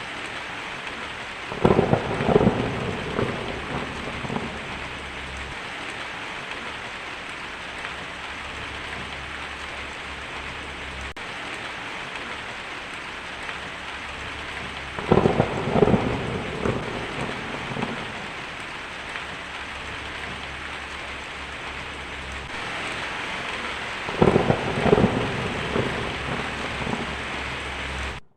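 Heavy rain falling steadily on a tin roof, with three rolls of thunder, each a few sharp cracks followed by rumbling for two or three seconds: one about a second and a half in, one about halfway, and one near the end.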